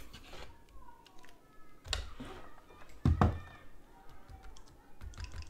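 Clicks and plastic knocks from handling a Nintendo Switch console as it is lifted out of its dock and set down on a silicone mat. The loudest knock comes about three seconds in.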